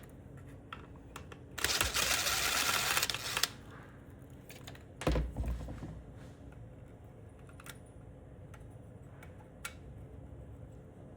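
Small parts and screws being handled and unscrewed on a septic air pump: scattered light clicks, a loud rasping burst of about two seconds near the start, and a heavy thump about five seconds in.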